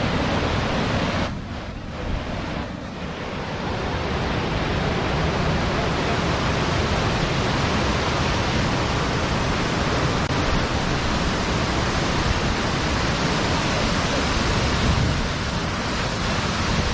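Steady rush of falling water from Jog Falls, mixed with wind buffeting the microphone; the noise dips briefly about a second in, then comes back as loud as before.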